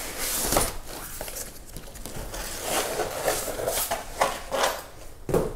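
Cardboard shipping carton flaps rustling and scraping as a fabric gig bag holding a bass guitar is slid out of the long box, in a string of irregular rustles with a sharper scrape near the end.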